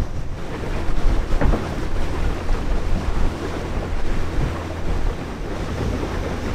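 Small open motorboat under way, its engine running steadily as a low hum, with wind buffeting the microphone and water rushing along the hull.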